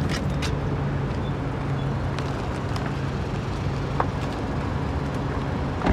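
Car running, heard from inside the cabin: a steady low hum with a few faint clicks.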